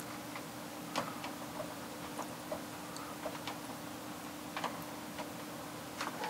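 Quiet room tone: a steady low hum with scattered, irregular faint clicks and ticks.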